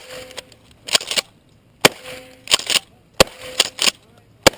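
Rapid gunfire in a practical shooting stage: loud single shots at a steady pace, about one every 1.3 seconds. Each shot is followed a moment later by a short cluster of quieter sharp cracks.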